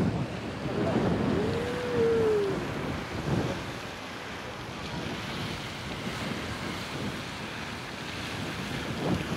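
Wind buffeting the microphone over a steady outdoor hiss, in irregular low gusts. About a second and a half in, one short call rises and then falls in pitch.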